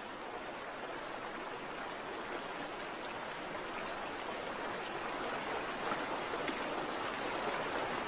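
Shallow stream running over gravel: a steady rushing hiss of water that grows a little louder toward the end.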